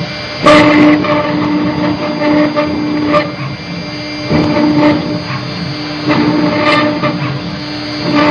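Stone CNC engraving router running: a steady spindle tone under irregular louder grinding surges as the bit cuts. The loudest surge comes about half a second in.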